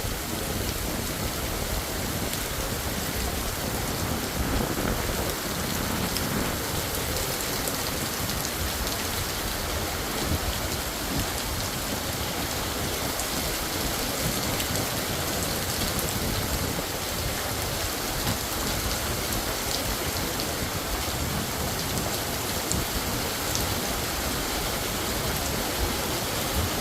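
A sudden rain shower pouring down steadily: a dense, even hiss of rain with scattered drop ticks.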